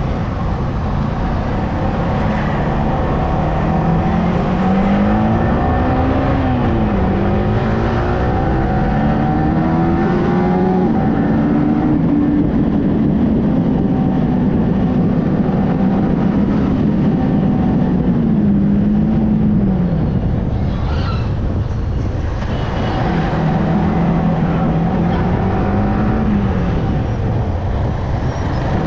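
Yamaha R15M motorcycle's single-cylinder engine under way, its pitch climbing and dropping back several times as the throttle opens and closes, with a steady stretch in the middle. Wind and road noise run underneath.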